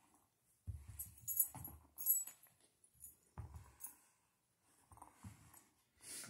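Metal collar tags on a small dog jingling in short bursts as it tugs and shakes at a toy, with a few low thuds in between.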